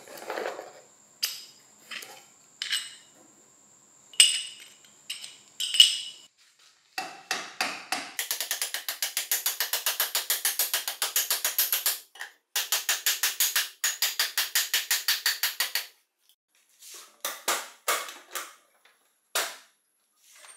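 A wooden mallet tapping a steel sleeve down into a metal drill housing, quick even blows about five a second in two runs with a short break between them, the loudest sound here. Before it, a few scattered clicks and rustles from a cardboard box being opened; near the end, a few separate clinks.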